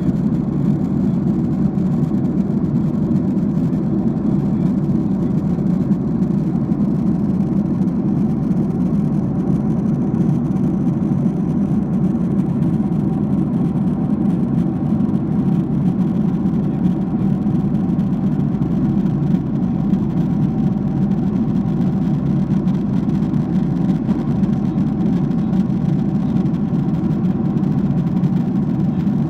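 Jet airliner cabin noise in flight: the engines and the air rushing past the fuselage make a steady, deep rumble, with a faint steady hum above it.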